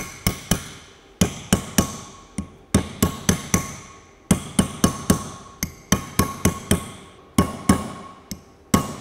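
Hammer tapping an old bearing race used as a drift, driving a new hub seal into a Land Rover wheel hub. It makes a run of sharp metal-on-metal blows, about three a second with short pauses, each with a brief ring.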